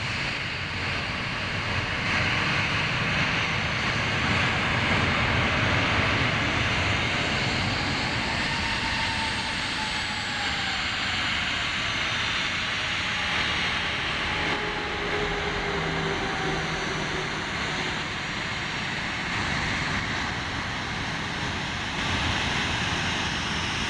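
Jet aircraft engines running, a steady loud rush with faint whining tones that slide slowly down in pitch midway through.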